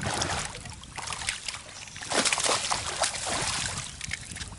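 Hooked largemouth bass splashing at the surface beside a boat as it is fought in, with the loudest cluster of splashes about two seconds in.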